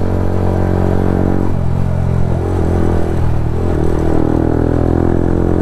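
Motorcycle engine running while under way, its note shifting about a second and a half in and then wavering up and down.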